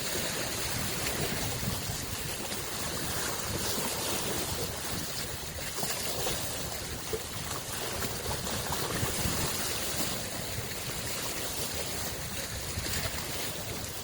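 Small lake waves lapping and splashing at the shoreline, a steady wash of water with many small splashes.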